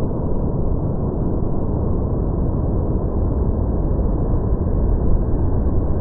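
Fukuroda Falls, a tall, wide waterfall carrying heavy rainy-season flow: a steady, deep roar of falling water heard close up.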